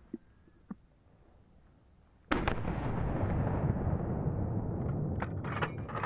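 Hunting rifle shot a little over two seconds in: a sudden loud crack followed by a steady rushing noise that carries on, with several sharper cracks near the end.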